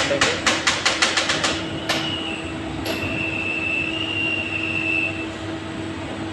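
CNC lathe running with its chuck spinning as the turning tool is brought up to touch off on the face of the spinning workpiece. There is a steady hum, a quick run of sharp clicks over the first second and a half, and a thin high whine from about three to five seconds in.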